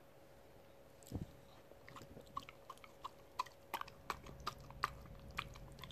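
Miniature schnauzer licking and smacking yogurt off a spoon: a run of small wet mouth clicks that starts about two seconds in and comes several times a second. A soft thump about a second in.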